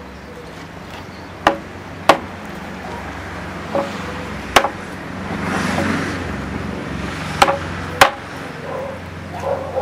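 Hand hammer blows on the rim of a wooden cart wheel: about six sharp, irregularly spaced strikes, several with a short metallic ring. A soft rushing noise swells and fades between the blows around the middle.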